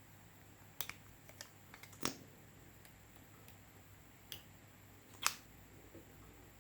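Slime being pressed and stretched by hand, giving about a dozen short, sharp, irregular pops and clicks, the loudest about two seconds in and just past five seconds.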